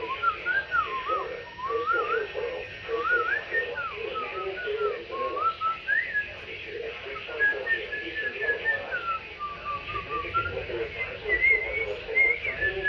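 A person whistling an aimless, wandering tune, the pitch sliding up and down with short breaks.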